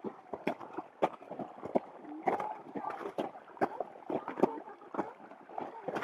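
Hikers' footsteps crunching on glacier ice, a rapid, irregular run of sharp steps, about two or more a second.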